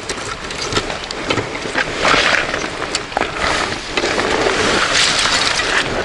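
Rustling and scraping with small clicks and knocks as camping luggage is unstrapped and lifted off a motorcycle, louder about two seconds in and again near the end.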